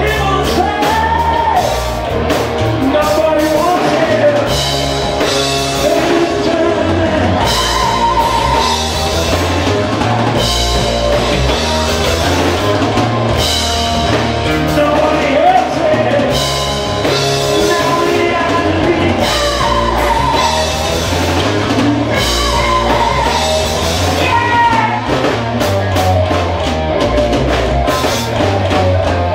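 Live rock band playing loud: a male lead singer's voice over electric guitars and a drum kit.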